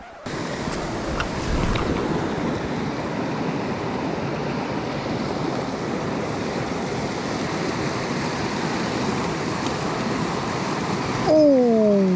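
Mountain stream rushing over rocks and small cascades, a steady even rush of water. Near the end, a long vocal sound falling in pitch rises above the water.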